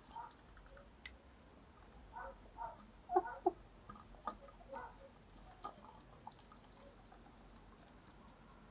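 Chickens giving short soft clucks while pecking at wet feed in a metal tub, with a few sharp taps of beaks on the tub; the loudest is a pair of calls about three seconds in.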